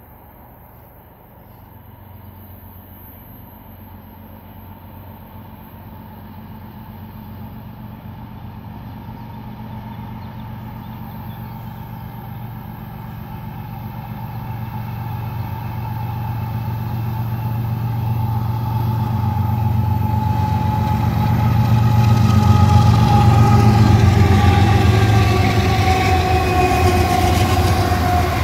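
Union Pacific diesel locomotives at the head of an intermodal freight train approaching and passing. A low engine drone and a whine grow steadily louder, loudest about three-quarters through, and the whine dips slightly in pitch as the units go by.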